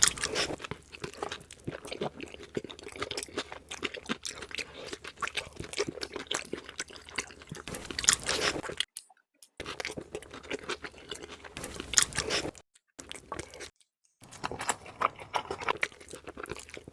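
Chewing and biting pork with crunchy mouthfuls, a steady run of wet, clicky eating sounds, broken by three brief gaps of total silence about nine, thirteen and fourteen seconds in.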